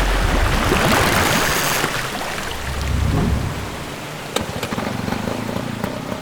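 Motorboat under way: loud rushing of wind and water over a running outboard engine. In the second half the rush eases and the engine's steady hum comes through more plainly.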